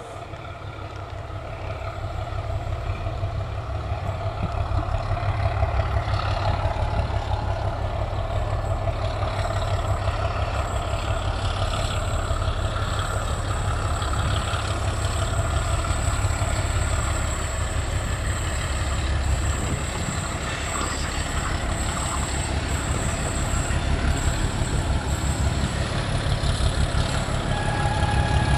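Diesel locomotive hauling a freight train, its engine running with a low, even throb that grows louder over the first several seconds and stays close. A thin high whine runs through the latter part.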